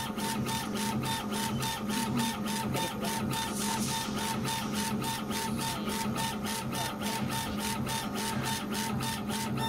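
80 W CO2 laser engraver raster-engraving a marble tile: the laser head's stepper-driven carriage shuttles back and forth, with a sharp tick at each reversal a few times a second over a steady mechanical hum.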